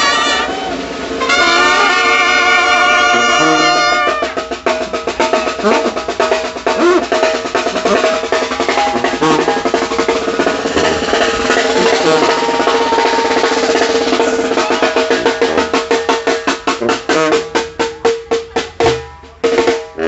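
Sinaloan banda brass band playing live: horns hold chords for the first few seconds, then from about four seconds in the drummer takes over with rapid snare and drum rolls that quicken toward the end, over one long held note.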